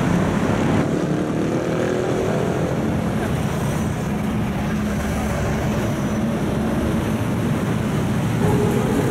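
City road traffic: vehicle engines running close by over a steady rumble of traffic, with engine pitch shifting slowly in the first few seconds.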